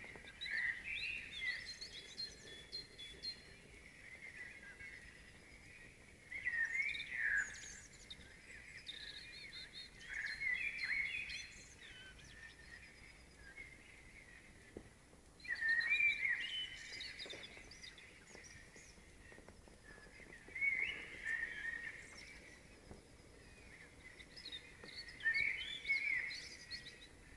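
A songbird singing at night: short warbling phrases of whistled and twittering notes, coming about every four to five seconds over a faint steady background hush.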